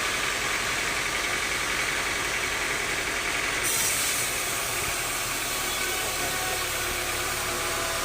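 Sawmill machinery running with a steady mechanical drone. About three and a half seconds in there is a brief hiss, after which the running sound drops slightly and carries on.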